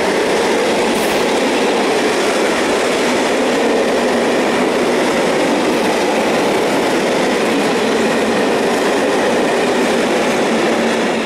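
Freight train of open coal wagons rolling past close by, a steady loud noise of wheels on rails. The last wagon passes near the end.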